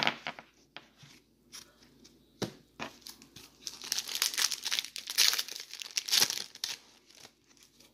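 Plastic wrapper of a wrestling trading card pack being torn open and crinkled by hand: a few sharp crackles, then a few seconds of dense crinkling in the middle.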